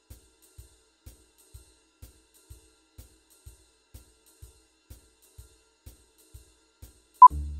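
Film-leader countdown sound effect: soft, even ticking about twice a second, ending near the end in a single short, loud beep, the countdown's sync pop, followed at once by a low hum.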